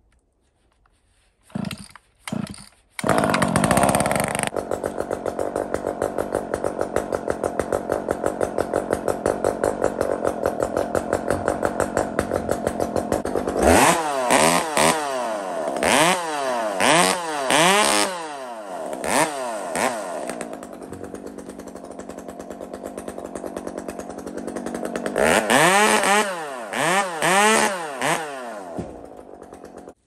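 Small gasoline chainsaw started with two short pulls. It catches about three seconds in and runs steadily, then is revved up and down repeatedly from about 14 seconds and again around 25 seconds while cutting pine limbs, and dies away near the end.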